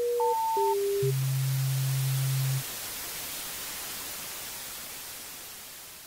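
Electronic intro sound effect: a few short beeps jumping between pitches, then a low steady tone for about a second and a half, over a static hiss that fades away toward the end.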